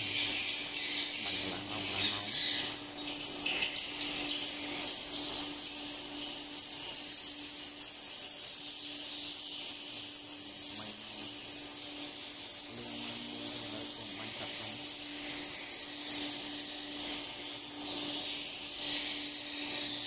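A swiftlet house's centrifugal mist humidifier running with a steady low hum and a hiss, under a continuous high-pitched whistling chatter typical of swiftlet calls.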